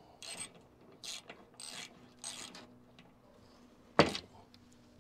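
Socket ratchet wrench clicking in four short runs while bolts are turned into a UTV's metal skid plate, followed by a sharp knock about four seconds in.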